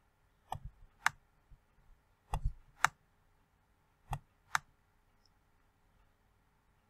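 Computer mouse button clicking: three press-and-release pairs, each pair about half a second apart, as the eraser is dragged in strokes.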